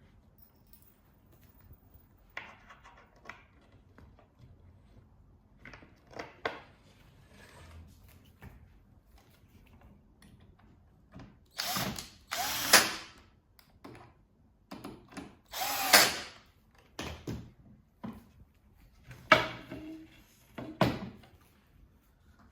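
Cordless drill-driver driving screws to join the platform boards together, in several short bursts of its motor in the second half. Before that, light clicks and knocks of parts being handled.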